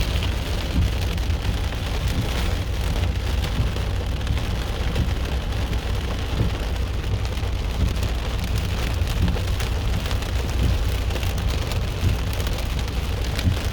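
Heavy downpour: steady rain with many drops striking surfaces close by, over a constant low rumble.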